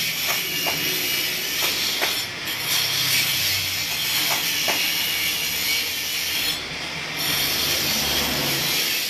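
Corded hand-held power tool grinding into a concrete floor: a steady harsh hiss that dips briefly about two seconds in and again near seven seconds, with a few faint knocks.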